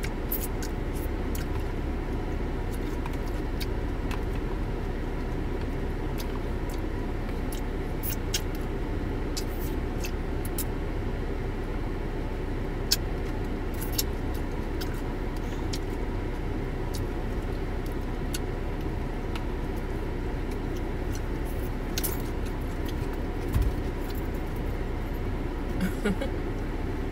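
Steady low rumble and hum inside a parked car's cabin with the engine running, with scattered small clicks and taps of chopsticks against a plastic ramen bowl.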